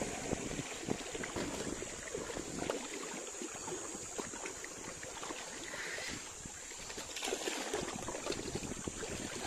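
Wind buffeting the microphone over sea water washing among shore rocks, with scattered small clicks.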